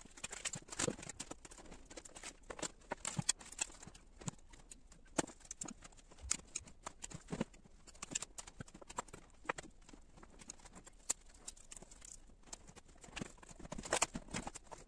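Rapid, irregular clicks and knocks of a laptop's plastic and metal parts and small tools being handled on a wooden desk, busiest near the end as the laptop is turned over.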